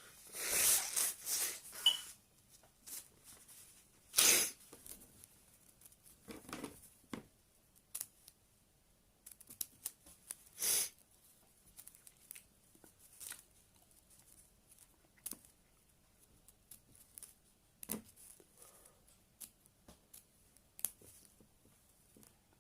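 Paper being cut by hand: scattered quiet snips and scrapes, with a cluster of louder ones in the first couple of seconds and single louder ones about four and eleven seconds in.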